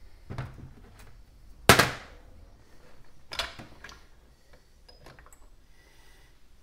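Hand tools and engine parts clanking on a metal workbench. There are three sharp knocks, the middle one loudest with a short ring, and lighter clicks between them.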